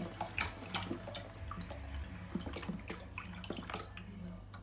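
Milk pouring from a carton into a stainless-steel saucepan, making an uneven splashing with small irregular drips and clicks.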